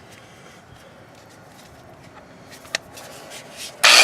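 Quiet handling with a sharp click nearly three seconds in, then a Chicago Electric half-inch electric impact wrench starts up loudly just before the end.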